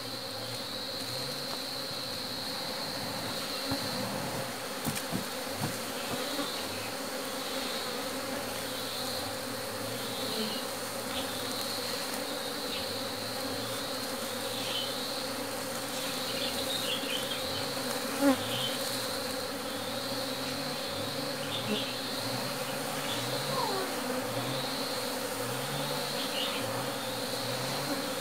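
Swarm of honeybees buzzing steadily in flight around a hollow-log hive as a colony is shaken from a sack to the entrance, single bees buzzing close past now and then. A single short knock about eighteen seconds in.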